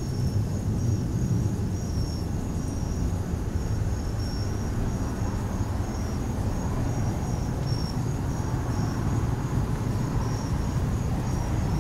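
Crickets chirping in two overlapping trains of short, evenly repeated high chirps at slightly different pitches, over a steady low rumble of wind on the microphone.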